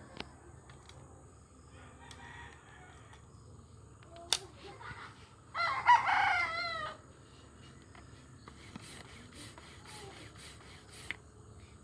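A rooster crows once, a long crow of about a second and a half and the loudest sound here. A little over a second before it comes a single sharp crack, and a run of lighter clicks follows near the end.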